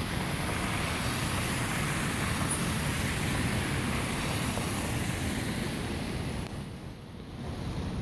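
Cars driving through deep slush, their tyres hissing and spraying wet snow, over steady street traffic noise. The noise eases briefly near the end as a car passes.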